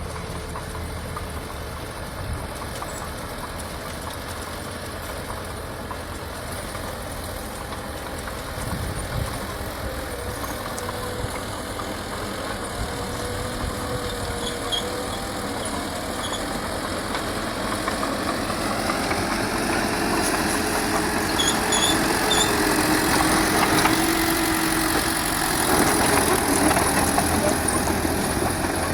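Old Furukawa bulldozer's diesel engine running steadily, growing louder in the second half.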